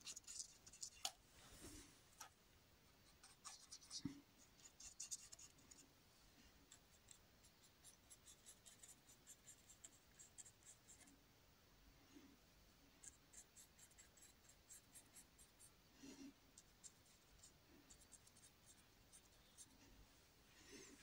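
Faint scratchy strokes of a paintbrush on canvas: runs of short, quick dabs and flicks, with a few soft taps of the brush.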